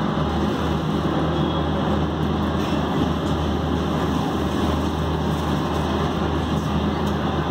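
Passenger train of the Darshan AC Express heard from on board as it runs in along a station platform: a steady rumble of the coach's wheels and running gear with a strong low hum.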